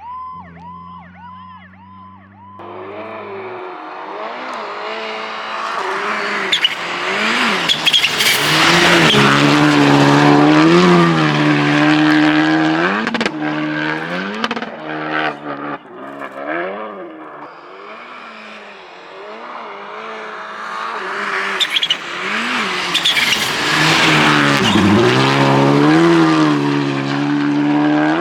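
Rally car engines at full load, the revs climbing and dropping repeatedly through gear changes and lifts, rising to two loud peaks as the cars pass. A fast warbling, siren-like tone sounds briefly at the start.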